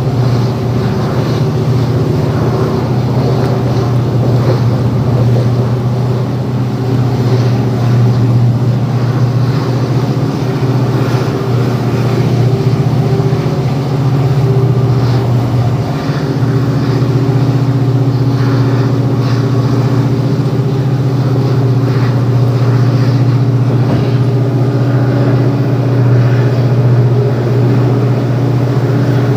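WDG4 diesel locomotive's EMD 710 two-stroke V16 engine running steadily under load, a deep even drone with wheel and track noise underneath. The loudness dips briefly about 16 seconds in.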